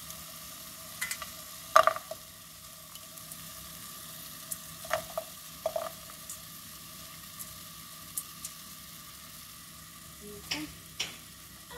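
Chunks of cooked chicken dropping from a metal colander into a ceramic frying pan with oil, over a steady low sizzle. Several sharp knocks of the colander and chicken against the pan, the loudest about two seconds in.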